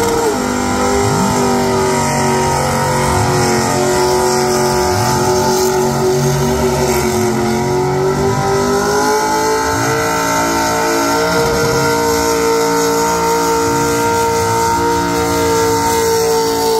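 A burnout car's engine held at high revs while its rear tyres spin and smoke. The engine note holds steady, sags a little about halfway through, then climbs back up and stays high.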